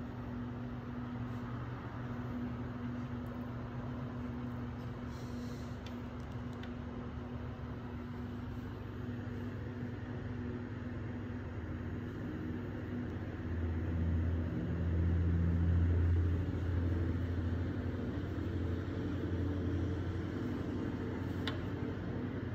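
Steady low mechanical hum with no speech. It grows louder for several seconds past the middle, then settles back.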